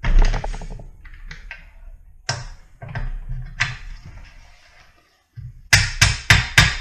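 A thud and a few knocks and scrapes as the Miata power plant frame is shifted on its support, then near the end a quick run of sharp mallet blows, about three a second, knocking the frame back into line with the transmission.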